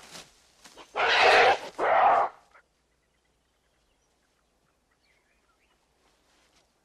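Gorilla calls: two loud, rough bursts a little over a second in, each about half a second long.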